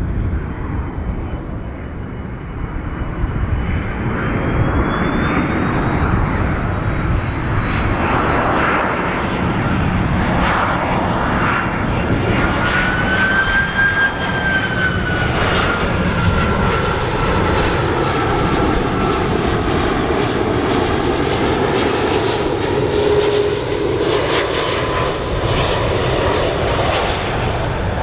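Airliner on approach passing overhead, its engines building to a loud, steady rumble. The engine whine rises in pitch toward the middle as it closes in, then slides lower as it passes and moves away.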